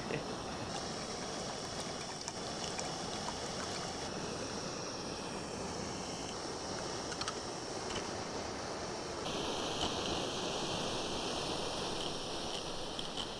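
Primus Express Spider II remote-canister gas stove burning steadily in liquid-feed mode, canister inverted, a continuous even rushing hiss as it heats water, with a few faint ticks.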